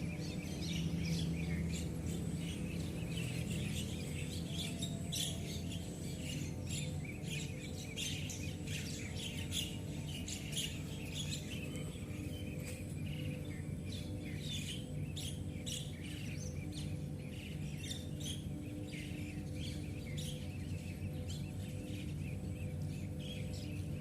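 Birds chirping in a dense, overlapping run of short calls, over a steady low hum.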